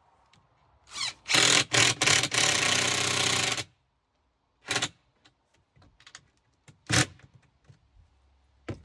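Power drill working into plywood: a few short pulses, then a steady run of about two seconds, and two more brief bursts later.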